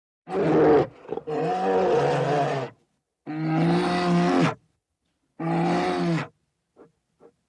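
Lion roaring: four long, deep calls in a row with short pauses between them, the second the longest.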